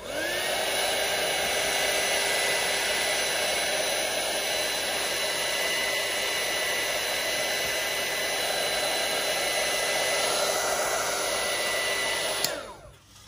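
Embossing heat gun switched on with a click, its fan rising within half a second to a steady hum over a rush of blown air. About twelve seconds later it is switched off with another click and the fan spins down.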